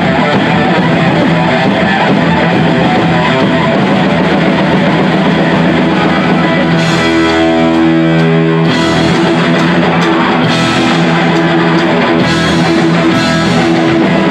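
Heavy metal band playing: distorted electric guitar riffs over drums, loud and steady, with a held chord about seven seconds in.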